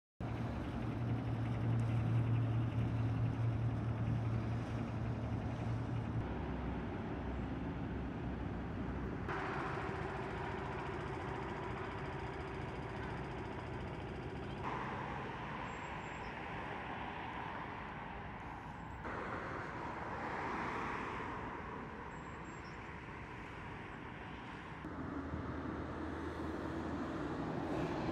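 Steady outdoor ambient noise with an engine-like hum, loudest and lowest in the first six seconds. The background changes abruptly several times, about 6, 9, 15, 19 and 25 seconds in.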